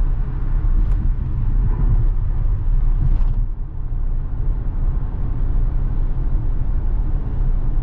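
Steady low rumble of tyre and road noise inside an electric Tesla's cabin at freeway speed, with no engine sound.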